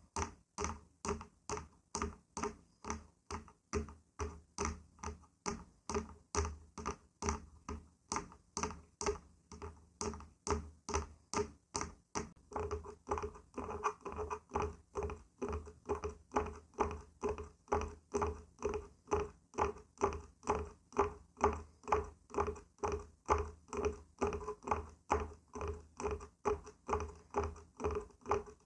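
Wooden surface being tapped or knocked by hand in a steady rhythm, about two taps a second. From about halfway each tap rings with a clear hollow tone.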